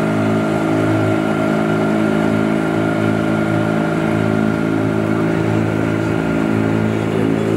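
Outboard motor of a small open boat running steadily, a constant drone that holds one pitch without revving up or down.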